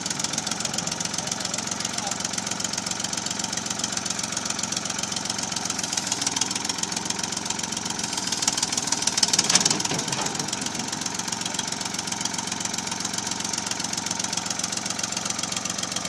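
Ford backhoe's engine running steadily, with a brief louder swell about nine seconds in.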